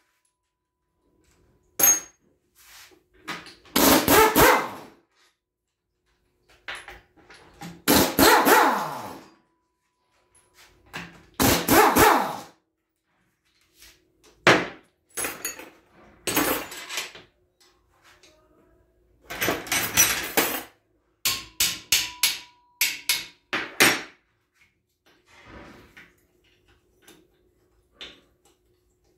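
Air impact wrench hammering in short bursts, up to about a second each, on the bolts of an Aisin A442F automatic transmission case as it is stripped down, with a quicker run of short blips about two-thirds of the way through.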